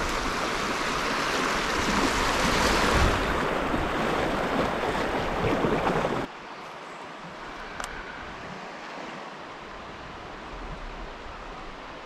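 Rushing river water, a loud steady rush that cuts off abruptly about six seconds in to a quieter, steady flow.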